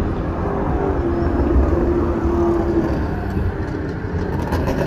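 Cars running laps on a race track, heard across the circuit, with one engine note holding steady for about two seconds early on over a heavy low rumble.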